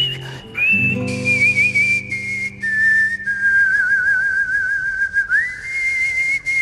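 Human whistling a TV show's theme tune over a strummed nylon-string classical guitar. Long held notes with vibrato step down in pitch, then one glides up about five seconds in; a guitar chord is strummed about a second in and rings on, fading.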